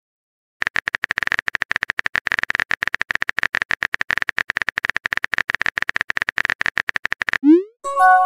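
Texting-app typing sound effect: rapid, even keyboard clicking for about seven seconds. Near the end, a short rising pop and a brief chime play as the message is sent.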